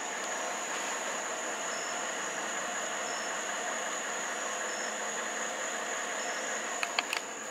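A 2004 Mercury Marauder's 4.6-litre DOHC V8 idling steadily, heard from the driver's seat with the door open. A few sharp clicks come near the end.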